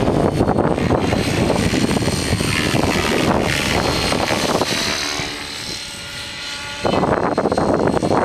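Align T-Rex 600EFL Pro electric RC helicopter flying, its rotor and motor tones mixed with heavy wind buffeting on the microphone. About five seconds in the rush eases for nearly two seconds, leaving the helicopter's steady hum clearer, then comes back suddenly.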